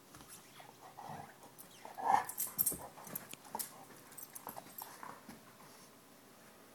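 Golden retriever playing with a black rubber chew toy: short whimpering noises from the dog, the loudest about two seconds in, mixed with sharp clicks and knocks as it mouths and paws the toy.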